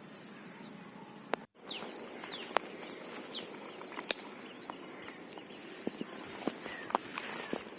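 Insects shrilling steadily in two high, even tones, with scattered sharp clicks and a few short falling bird chirps. The sound drops out completely for an instant about one and a half seconds in.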